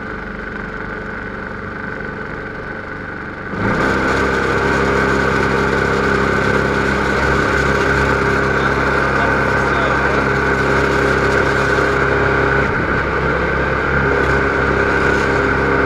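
MTD walk-behind snowblower's 5 hp engine running steadily at a constant speed. About three and a half seconds in, it turns much louder as a rough rushing noise joins it.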